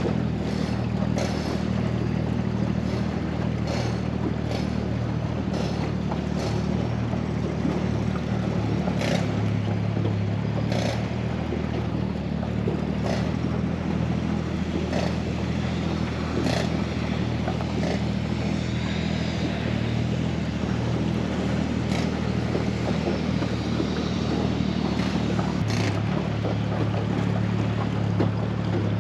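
Mercury 25 hp four-stroke outboard motor running at a steady speed under way, with scattered short sharp taps over it.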